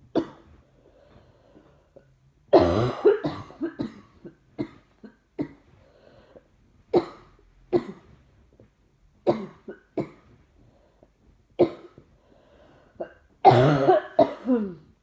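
A person with a chest infection coughing over and over: single sharp coughs every second or two, with a longer coughing fit about two and a half seconds in and another near the end.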